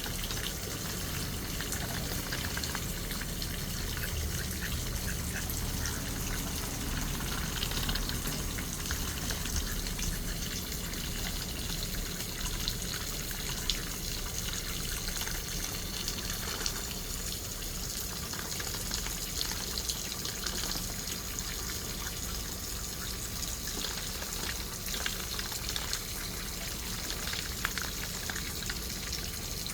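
Water running and splashing steadily, with small sharp splashes and clicks scattered throughout.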